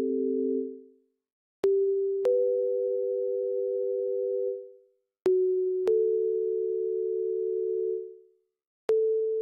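Closing-credits background music of plain, steady tones: pairs of sustained notes, the second note joining about half a second after the first. Each pair holds for a few seconds, then fades, and a new pair starts about every three and a half seconds.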